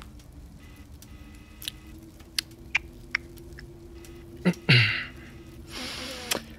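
Cloth and small objects handled during a costume fitting: scattered light clicks, then two short rustles in the last two seconds, over a steady low hum.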